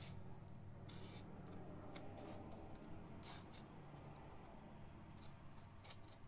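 Faint, irregular short strokes of a blade slicing and scraping through the plastic wrap and tape on a box.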